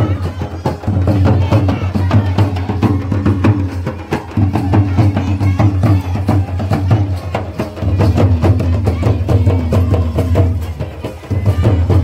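Traditional folk drumming from a band of strapped-on barrel drums and frame drums beaten with sticks, a fast, dense, driving beat that keeps going, with crowd voices mixed in.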